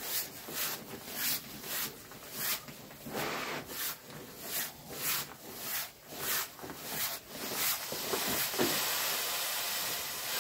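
Fabric of an Exped Megamat 10 LXW self-inflating sleeping pad rubbing in repeated strokes as it is rolled up tight to squeeze it flat. From about eight seconds in, a steady hiss of air rushes out of its one-way exhaust valve as the roll nears the end.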